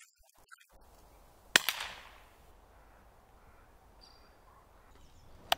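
Air rifle shot: one sharp crack about one and a half seconds in, with a fainter knock right after it. A second short, sharp click comes near the end.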